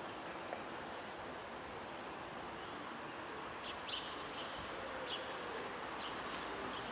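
Quiet outdoor ambience: a steady, even background hiss with a few faint, brief high chirps about four seconds in.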